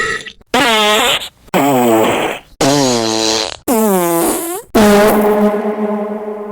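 A run of loud cartoon fart sound effects, about one a second, each a short pitched blast that dips and then rises in pitch. A bit under five seconds in comes a longer fart at a steady pitch that slowly fades away.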